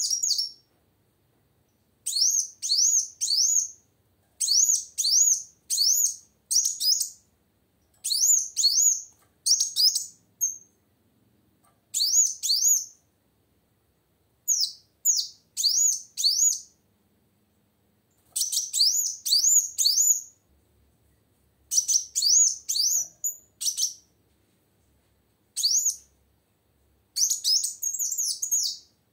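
Female kolibri wulung (a sunbird) calling: short bursts of two to five quick, high, sweeping chirps, repeated every second or two with brief pauses between them.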